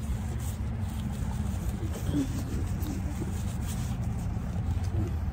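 Wind blowing across the phone's microphone outdoors, a steady low rumble.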